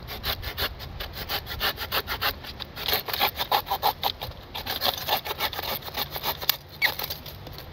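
Small pocket saw cutting through a wooden stick, trimming the end of a stake, in rapid back-and-forth strokes, several a second, with a brief pause near the end.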